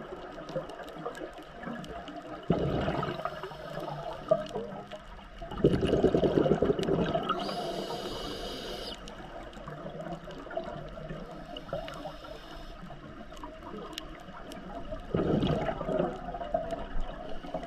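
Scuba diver's breathing heard underwater: three bursts of exhaled bubbles rumbling from the regulator, with a hissing inhale between them, over a faint steady crackle.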